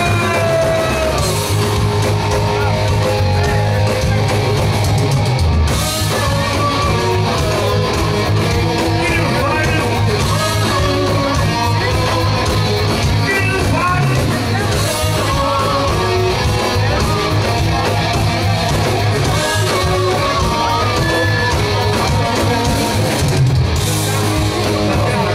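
Rock band playing live: electric guitars over drums and bass, loud and unbroken.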